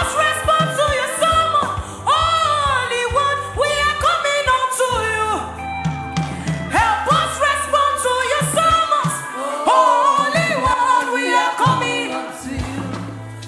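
Gospel worship singing: a voice sliding and swooping between notes over sustained low instrumental notes.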